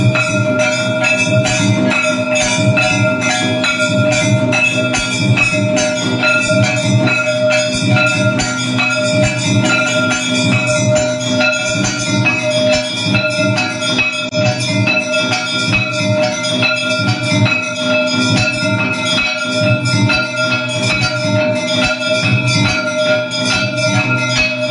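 Temple bells clanging rapidly and without pause during an aarti, their ringing tone held steady throughout, with drumming underneath.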